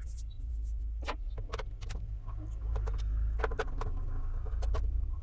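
Irregular sharp clicks and knocks of the plastic underside of a Bajaj Majesty ICX7 induction cooktop being handled and worked at with a screwdriver to open its casing, over a steady low hum.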